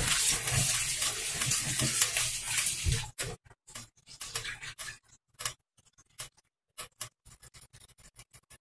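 Tap water running into a steel bowl of squid in a stainless-steel sink as hands rub the squid in the water. About three seconds in the flow stops abruptly, leaving scattered short splashes and drips as the bowl is tipped out and drained.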